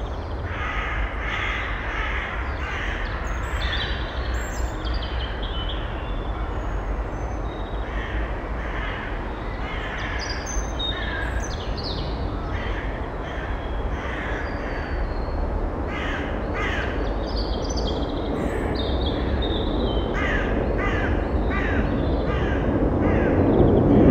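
Crows cawing repeatedly, several short harsh calls in quick runs, over a steady low background rumble.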